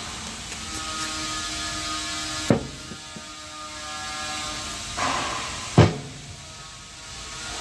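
Two sharp knocks, about three seconds apart, from work on a hive box, over a steady background hum.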